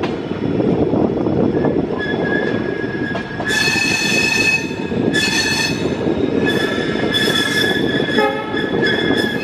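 Passenger coaches of an Indian Railways express rumbling over the rails on a tight curve, with the wheel flanges squealing against the rail in high-pitched tones that come and go, loud from about three and a half seconds in.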